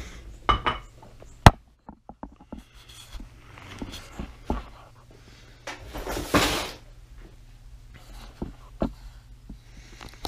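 Handling noises: a sharp click about one and a half seconds in, scattered small clicks and knocks, and a brief rustle a little after six seconds, over a low steady hum.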